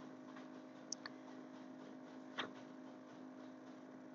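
Faint room tone: a steady low electrical hum, with a few faint short clicks about a second in and again past two seconds.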